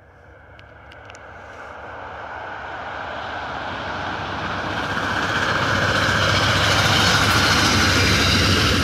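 A diesel commuter train approaching in push mode, cab car leading and a GE P40 locomotive pushing at the rear. Its rumble of wheels on rail, over a low engine hum, grows steadily louder. A few faint high clicks come about a second in.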